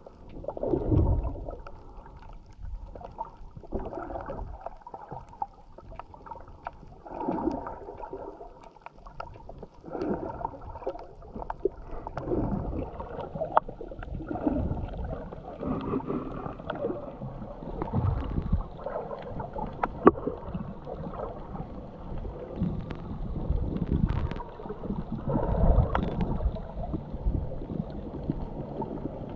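Muffled underwater water noise picked up by a submerged action camera: swells of sloshing every two to three seconds, with a few sharp clicks, the loudest about twenty seconds in.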